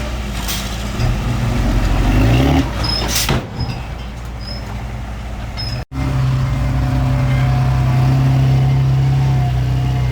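Heavy-equipment diesel engine running, its pitch rising about two seconds in, with a short hiss a little after three seconds. The sound breaks off for an instant near the middle and then carries on as a steady engine drone.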